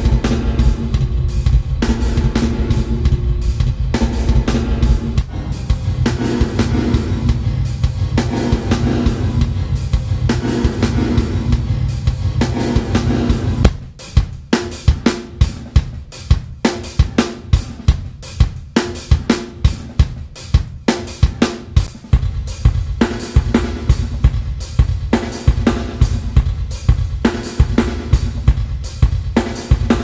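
Drum kit playing a steady beat through the D16 Group Spacerek reverb plugin as its presets are switched. For the first half the hits blur together under a dense low ringing wash; about halfway through this thins out, leaving sharp, separate drum hits, each followed by a short reverb tail.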